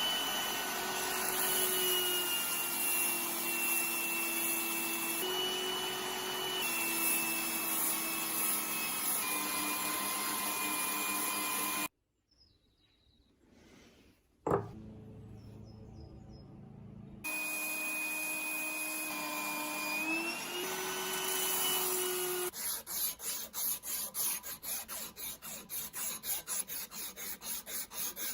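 An electric workshop power tool, such as a grinder or sander, running with a steady whine whose pitch steps slightly up and down as the rusty metal is worked. It stops abruptly partway through, there is a single sharp click, and then it runs again. Near the end it gives way to rhythmic back-and-forth rubbing strokes, as of a hand file or sandpaper on metal.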